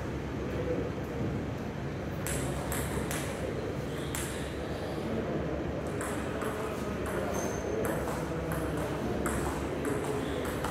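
A table tennis rally: the celluloid ball ticking on the table and off rubber-faced paddles in a quick, even run of sharp clicks that starts about two seconds in.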